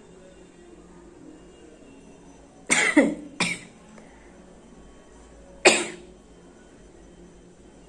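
A person sneezing three times in sudden, explosive bursts: two close together about three seconds in, and a third about two and a half seconds later.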